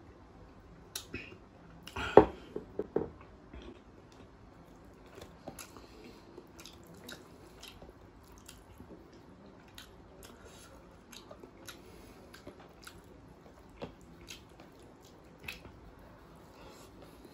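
Close-miked eating sounds: a short cluster of loud sounds about two seconds in, then a hand squishing rice on a plate and soft chewing with many light clicks.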